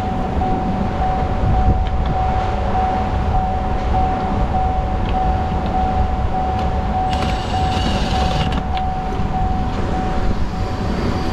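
A Milwaukee cordless impact driver runs for about a second and a half, about seven seconds in, driving a screw into the door-panel trim. Under it is a steady low rumble with a constant tone.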